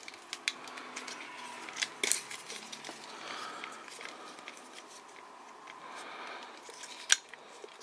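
Hard plastic parts and clips of a Transformers Dragonstorm action figure clicking and knocking as it is handled and folded, with a sharper click about two seconds in and another near the end.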